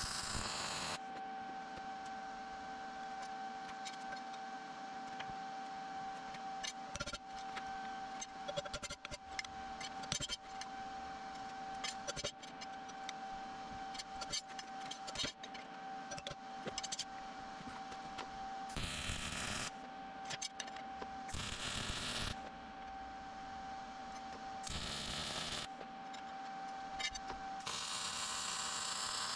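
Steel being arc welded in five short bursts of crackling, hissing arc: one at the start, then four in the last third, the last and longest lasting nearly two seconds near the end. Between the welds a steady high whine carries on, with scattered light clicks and taps in the first half.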